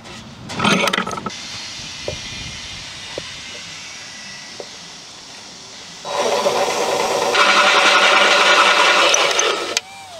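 Cordless drill driving a hole saw into a wooden board: it starts about six seconds in, gets louder once the teeth bite, cuts steadily for a few seconds, then stops and winds down with a falling whine. A short burst of handling noise comes about half a second in.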